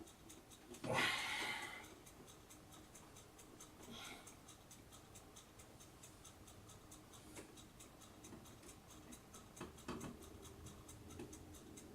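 Faint handling of a CPU tower cooler being lowered onto the motherboard and its mounting screws lined up: a brief scrape about a second in, then a few small clicks and knocks.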